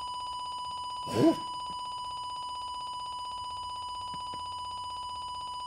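A steady, high electronic beep with a rapid fluttering trill, like a telephone ring, sounding without a break from the computer. A short vocal exclamation cuts in about a second in.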